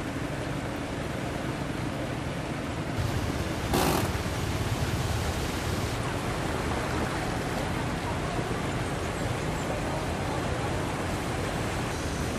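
A vehicle driving through shallow floodwater: a steady rush of water and road noise with an engine running under it, briefly louder about four seconds in.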